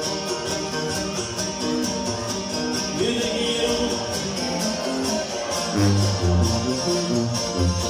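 Live regional Mexican band music with a tuba (sousaphone) playing the bass line in short low notes, which grow strong in the second half, over a steady beat.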